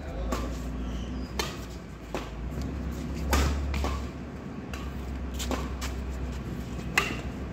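Badminton rackets striking a shuttlecock in a rally: sharp hits about once a second, seven in all, the loudest near the end, over a low steady rumble.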